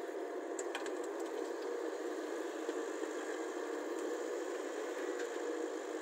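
Caterpillar excavator's diesel engine running steadily while the arm swings, with a few sharp clicks or knocks about a second in and a couple more later.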